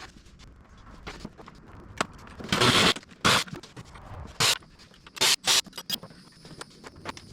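Hand tools and engine parts being handled while the intake of a Cummins diesel is taken apart: irregular light clicks and scrapes, broken by several short, loud rasping bursts, the longest a little over two seconds in.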